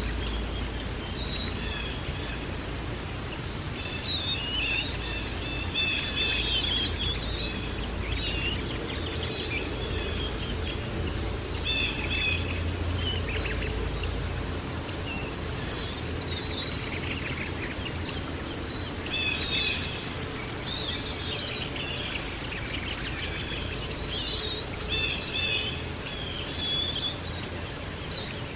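Many songbirds chirping and trilling, short calls overlapping throughout, over a steady low background rumble.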